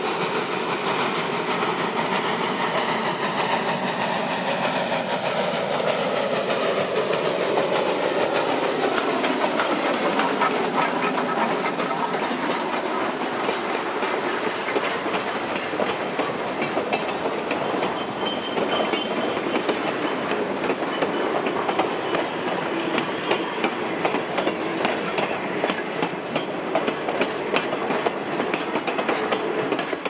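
Steam locomotive hauling a freight train passes close by, its sound dropping in pitch as it goes past. The freight cars then roll by with a steady clickety-clack of wheels over the rail joints.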